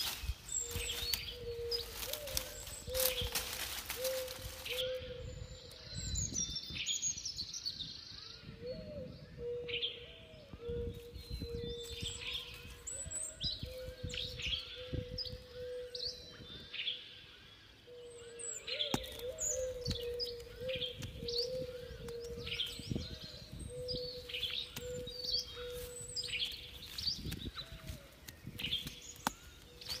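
Birds chirping and calling throughout, with a lower call repeated again and again on one pitch. Under them, rustling and scraping of a digging stick worked into dry forest soil among dead twigs.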